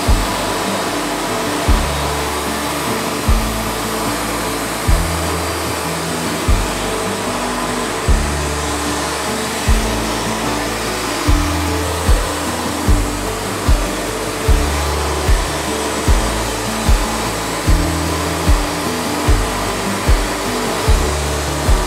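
Wood-Mizer band sawmill running, its blade cutting through a log with a steady whooshing din. Background music with a bass beat plays over it, the beat doubling in pace about halfway through.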